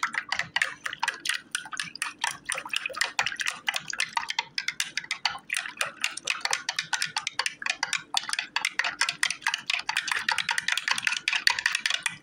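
A spoon stirring coffee fast in a ceramic mug, clinking against the sides many times a second without a break, then stopping suddenly at the end.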